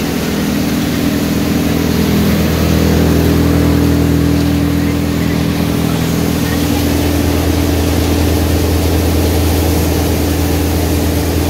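Shakti Egale paddy thresher running steadily while threshing paddy, a loud even mechanical drone from the machine and the tractor engine that drives it, with no change in speed.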